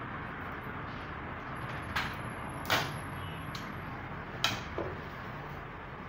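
A few sharp clicks and knocks from handling work at a sewing machine, the loudest about three seconds in, over a steady background hiss.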